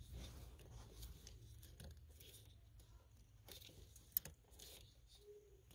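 Near silence, with faint rustling and a few small clicks of hands handling plastic parts and wiring under a car's dashboard; one sharper click a little after four seconds in.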